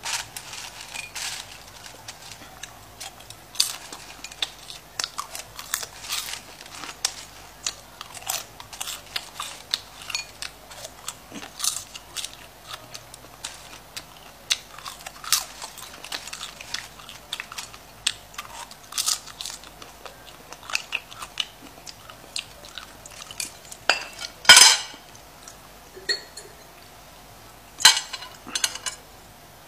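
Popcorn being eaten: a steady, irregular run of small crunches and crackles from chewing, with chopsticks picking at the bowl. Two louder sharp clicks come near the end.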